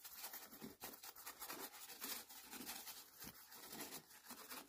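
Paintbrush brushing PVA glue onto a car headliner board: faint, quick, irregular scratchy strokes.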